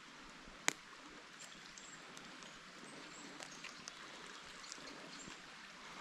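Faint, steady rush of a small forest stream, with one sharp click a little under a second in and a few faint ticks.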